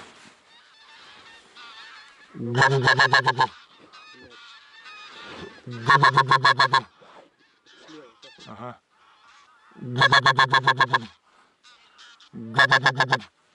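Goose honking: four loud bursts of rapid, repeated honks, each about a second long, coming every three to four seconds, with fainter calls in between.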